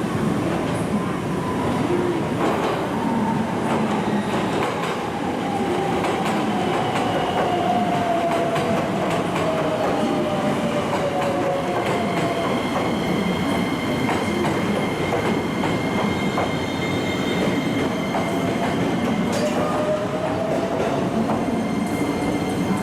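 Electric train running through the station with rumbling and wheel clatter. A motor whine glides down in pitch over the first ten seconds or so and rises again near the end, and thin high squealing tones come in about halfway.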